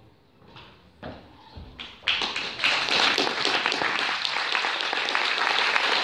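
Audience clapping: a few faint knocks, then applause breaking out about two seconds in and quickly building to a steady, full round.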